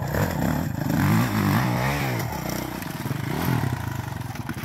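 Dirt bike engine revving under load on a steep rock climb, its pitch rising and falling several times in quick surges, then settling to a steadier beat near the end.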